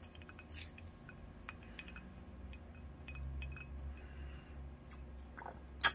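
Scattered light clinks and taps of glassware being handled during fuel mixing, with one sharper click near the end.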